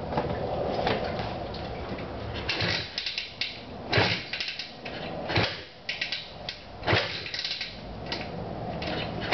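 Honda three-wheeler being kick-started cold after long storage: a string of sharp, irregular clanks from the kick-start lever and engine being kicked over, about a dozen in six seconds.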